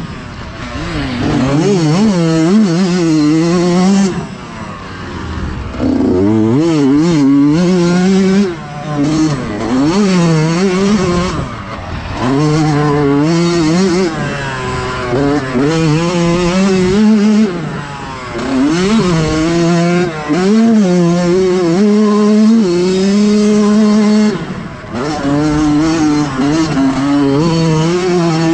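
Yamaha YZ125X two-stroke single-cylinder engine revving up and falling back over and over as the rider works the throttle and gears through the turns, with several brief throttle cuts. Heard from on the bike.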